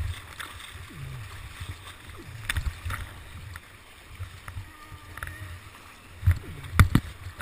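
Whitewater rapids rushing around a whitewater kayak in high water, with a steady low rumble and several sharp splashes and knocks of water breaking over the boat, the loudest two near the end.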